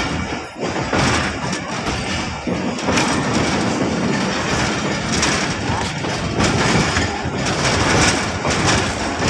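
Passenger train pulling into a station, with the steady rumble of the approaching locomotive and scattered knocks of wheels over the rail joints.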